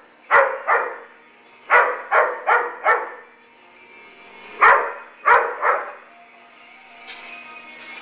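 Dog barking in short runs: two barks, then five quick ones, then three, with a faint steady hum between them.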